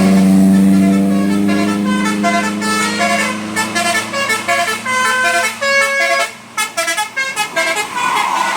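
Bus telolet horn of the Basuri type: a long steady low horn note that fades out about two and a half seconds in, overlapped and followed by a quick melody of short notes.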